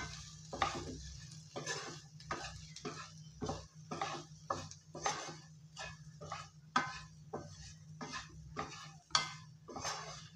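Wooden spatula stirring and scraping diced potatoes in a nonstick frying pan, in short strokes about two a second.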